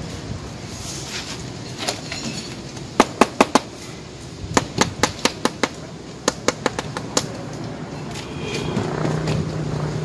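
A run of sharp taps and clicks in three quick clusters from a steel trowel knocking and working against wet cement mortar on a cornice moulding. A low steady hum comes in near the end.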